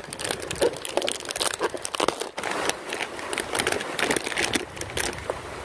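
Crinkling plastic snack-chip packet being pulled open and handled, a dense run of irregular crackles.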